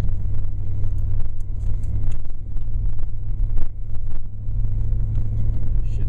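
Four-wheel-drive truck engine running under light throttle in four-high, a steady low drone, with scattered crunching from the tyres in the snow.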